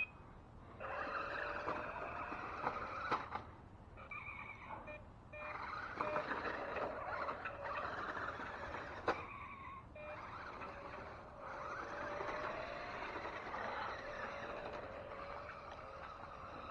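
A 1/10-scale electric RC off-road buggy's motor and gearbox whirring in three runs with short pauses between, the whine rising in pitch as it picks up speed. The driver thinks its 7.2 V battery could be getting low.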